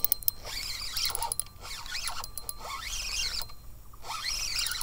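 Shimano Sahara 2500 spinning reel being cranked and the rod handled while fighting a hooked bass, with a few sharp clicks near the start. High, wavering squeaks chirp on and off.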